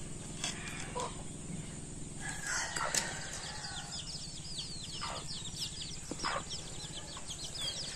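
Chickens calling, with a rapid run of short, high peeping chirps from about three seconds in, over a steady low hum. A few sharp clinks of a metal ladle against a metal pan and plates as curry is served.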